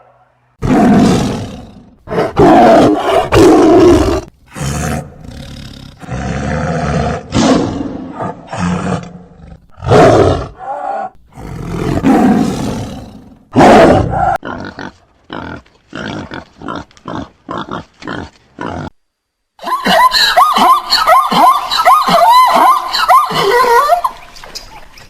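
A series of loud animal calls. Long harsh calls come first, then a run of short, quick calls, then a dense stretch of rapid, wavering, pitched calls near the end.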